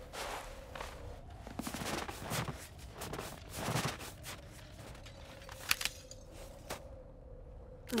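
Footsteps and scrapes over a heap of broken robot bodies: irregular shuffling, rustles and metallic clicks, with two sharp clicks near the end, over a faint steady hum.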